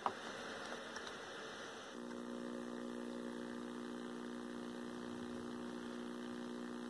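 A single click right at the start as the 1984 Emerson EC133 colour TV is switched on, then about two seconds in the set starts a steady buzzing hum as it warms up and a picture of colour bars comes on.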